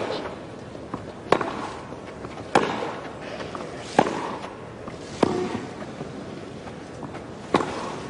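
Tennis rally on a grass court: racquets strike the ball with a sharp crack about every second and a quarter, the two players alternating, with a longer gap before the last hit.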